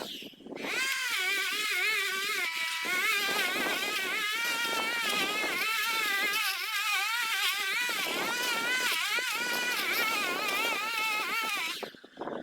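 Small petrol engine of a garden power tool running, its high whine wavering quickly up and down in pitch as the load and throttle change. It starts about a second in and stops shortly before the end.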